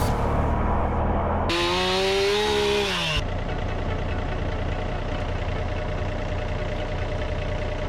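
Chainsaw engine running, revving up and back down about two seconds in, then running steadily.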